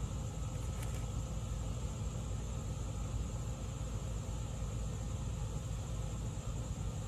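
Steady low background hum and rumble, like a running machine, with faint steady higher whines and one small click about a second in.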